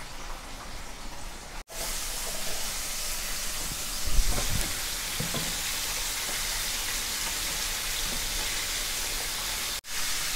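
Chicken pieces in a flour coating deep-frying in hot oil in a kadai, a steady sizzle and crackle that grows louder about two seconds in. A wire skimmer stirring the pieces gives a brief knock around four seconds in and a smaller one a second later.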